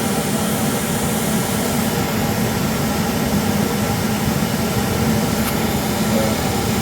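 Tankless water heater's combustion blower fan running with a steady hum and rush of air during an ignition attempt in which the igniter sparks but the burner does not light.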